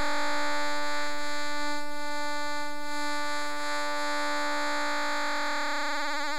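Pulse-wave synth tone from a Max/MSP rect~ oscillator holding a D at about 294 Hz, with sine-LFO vibrato. The vibrato rate is swept up into a harsh, very fast buzzing wobble, then brought back down to a slow pitch wobble near the end.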